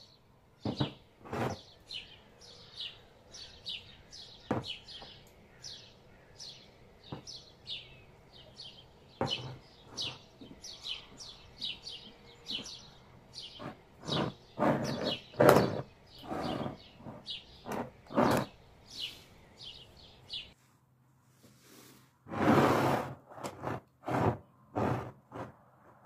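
Full glass pickle jars handled and set down on a wooden table: a series of knocks and clunks, heaviest in the second half. Behind them a bird chirps briskly about twice a second, stopping suddenly about 20 seconds in.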